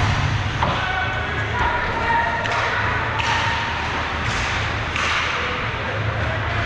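Ice hockey play in an arena: a thud against the boards at the start, then several short scrapes of skate blades on the ice.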